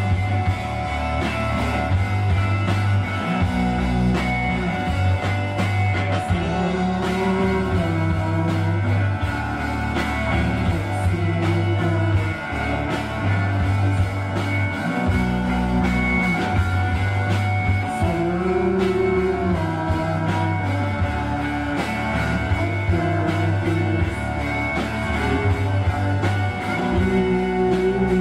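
Live band playing a song on bass guitar, electric guitar and drums, with the bassist singing at times.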